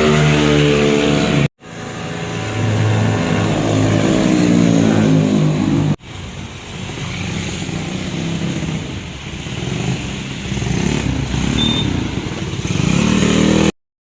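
Yamaha Mio scooter's single-cylinder four-stroke engine running and revving, its pitch rising and falling as it accelerates and eases off. The sound breaks off abruptly twice, about a second and a half in and about six seconds in, and stops suddenly near the end.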